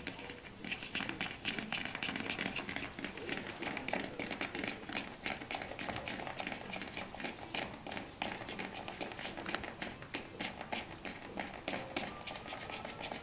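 Newspaper rustling and crinkling under puppies moving about on it, a steady run of small clicks and scratches.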